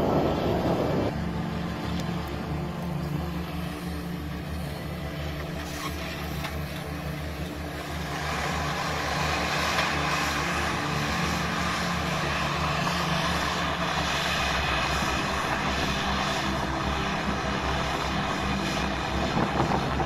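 Camera drone's propellers whirring steadily, with a louder, higher whine coming in about eight seconds in.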